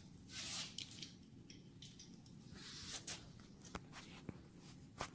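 Faint workbench handling of tools and parts: a few short rustling hisses and several light clicks.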